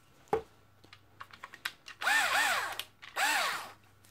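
Black+Decker BDCD8 7.2-volt cordless drill run briefly off the trigger in two short bursts about a second apart, the motor's pitch rising as it spins up and falling as it winds down. A sharp click and a few light handling ticks come before them.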